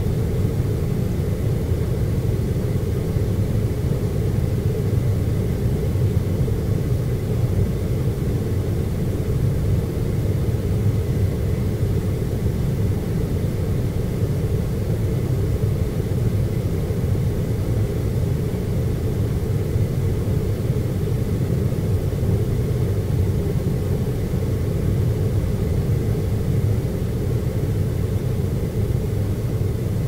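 Library ambience: a steady, unchanging low rumble of room tone, with a faint thin high tone running through it.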